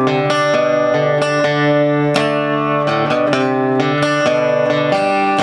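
Steel-string acoustic guitar playing a tune of strummed chords, about three strokes a second, each chord ringing on into the next.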